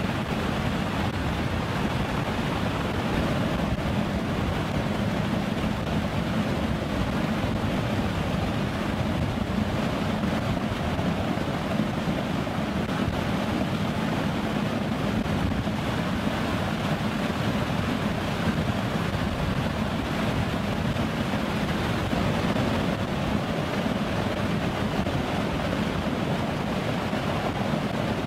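Steady roar of rushing air and engine noise aboard a KC-130J tanker in flight, unchanging throughout with no separate knocks or tones standing out.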